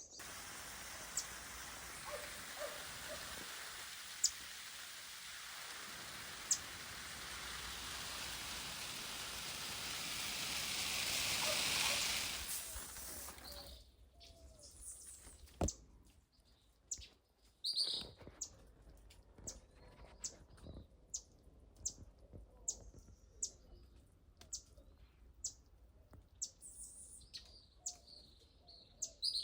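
Birds chirping in a backyard garden. For the first half a steady rushing noise swells and then cuts off suddenly, with a few high chirps over it. After that it is quieter, with short high bird chirps repeated about twice a second.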